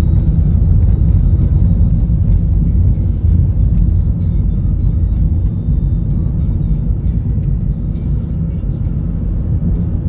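Steady low rumble of a car driving along a road: engine and tyre noise.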